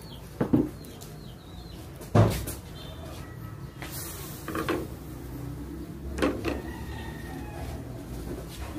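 A plastic ladle knocking and scraping against an aluminium wok as a coconut-milk fish stew is stirred: four knocks with a short ring, the loudest about two seconds in.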